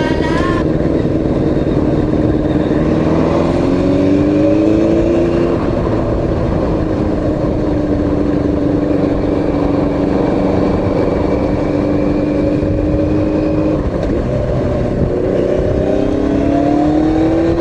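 Yamaha FZX750's inline-four running through a short muffler while riding, under heavy wind noise. The engine note climbs in pitch as it accelerates about three seconds in, then holds steady, and climbs again near the end.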